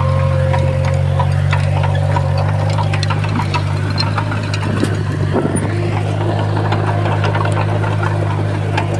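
Heavy earthmoving machine's diesel engine running steadily under a low, even hum, with scattered sharp clicks and clanks throughout.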